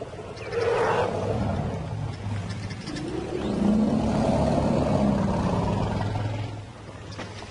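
Lions growling and snarling: a short snarl about half a second in, then a longer, louder low growl that fades near the end.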